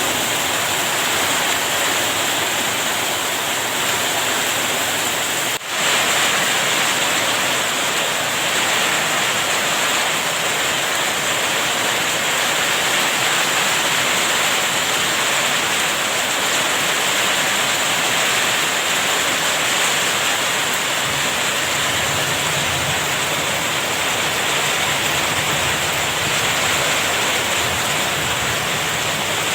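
Heavy rain pouring down in a steady, loud hiss, with a brief break about five and a half seconds in.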